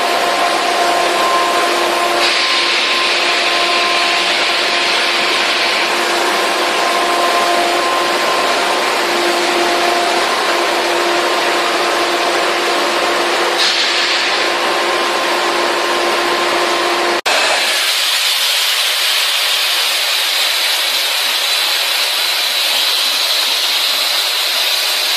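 Styrofoam (EPS) production machinery running loudly and steadily, a constant hum of several tones over a broad noise. About two-thirds of the way in the sound changes abruptly to a hiss with a thin high whine.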